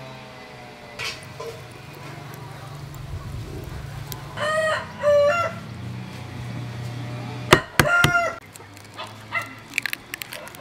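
A rooster crowing in the background, one call about four seconds in and another about eight seconds in. A few sharp knocks come just before the second crow, over a low steady hum in the first part.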